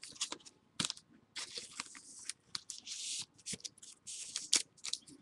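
Trading card packs and cards being handled: irregular crinkling of a foil wrapper and plastic, with short clicks and snaps.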